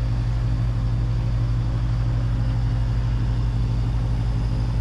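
Sailboat's inboard auxiliary engine running at a steady cruising speed while motoring in a calm, giving an even low drone.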